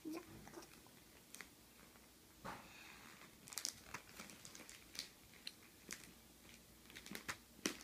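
Glossy magazine pages being handled and turned by a toddler's hands: faint, scattered rustling and crinkling with soft clicks.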